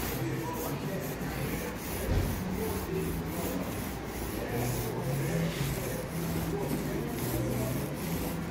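Small short-nap paint roller, about 4 mm nap, rolling wet paint over a board in quick back-and-forth strokes, a repeated rubbing swish with each pass.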